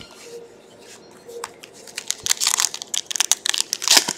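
Foil wrapper of a trading-card pack crinkling and tearing as it is ripped open by hand, a rapid run of crackles that starts about a second and a half in.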